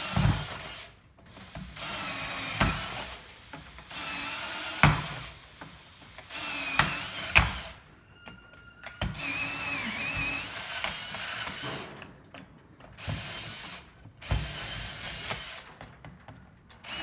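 Power drill drilling out the rivets on a sunroof assembly, one rivet at a time. It runs in about seven short bursts of one to three seconds each, with brief pauses between them and a sharp click inside some bursts.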